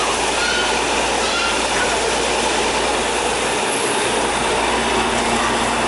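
Truck-mounted high-power air compressor running steadily, blasting compressed air and water up out of a borewell to flush it clean. The sound is a loud, even, unbroken rush.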